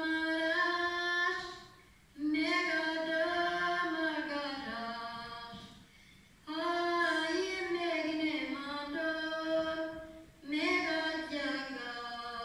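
Women's voices singing a folk song unaccompanied, in four sung phrases of a few seconds each with short breath pauses between them.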